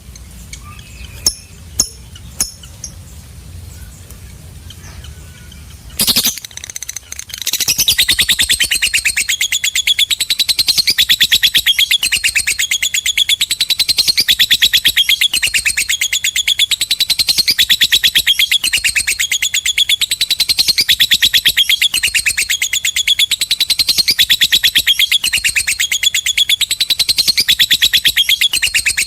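Lovebird chattering in a long, rapid, shrill unbroken run, the 'ngekek panjang' (long ngekek) song, starting about seven seconds in with phrases repeating about every second and a half. Before it there are only a few faint sharp clicks.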